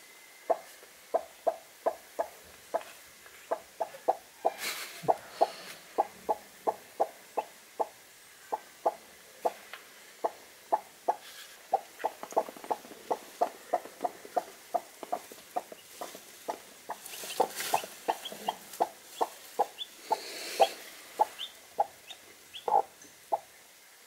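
Broody barred hen clucking on her nest: a steady run of short, low clucks, about two a second. This is the typical clucking of a sitting hen, here 21 days into incubating her eggs.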